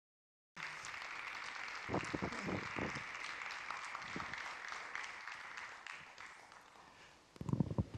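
Audience applause that starts suddenly about half a second in and fades away over the last couple of seconds.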